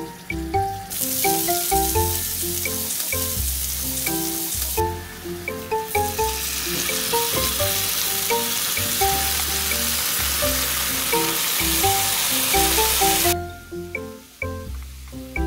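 Chopped onions sizzling in hot oil in a frying pan, with kimchi tipped in partway. The sizzle drops away briefly about five seconds in and stops shortly before the end.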